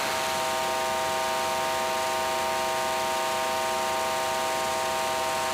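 Electronic drone from live performance sound: a steady hiss like static, with a cluster of held, unchanging tones sounding together over it.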